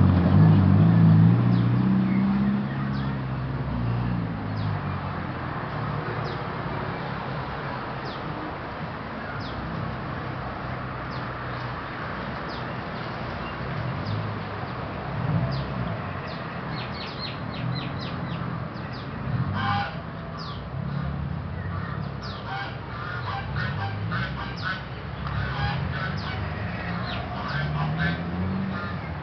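Outdoor ambience of birds chirping and calling, busier in the second half, over the low hum of traffic, with a motor vehicle going by loudly at the start.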